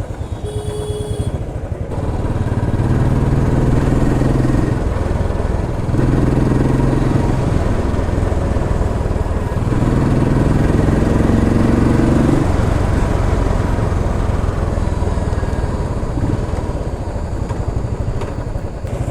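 Royal Enfield Classic 350 Stealth Black's single-cylinder engine and exhaust running while the bike is ridden, with even low thumping pulses. Its note swells in three stretches as it pulls harder.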